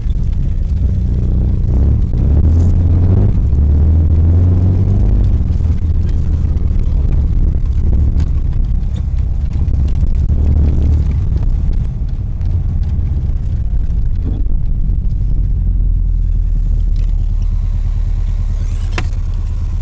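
Car engine running as the car drives on snow, heard from inside the cabin as a steady low drone. It is louder from about two seconds in and eases off after about twelve seconds.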